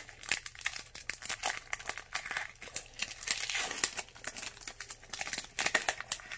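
Foil Pokémon TCG booster pack wrapper crinkling and crackling in the hands as it is torn open and the cards are slid out.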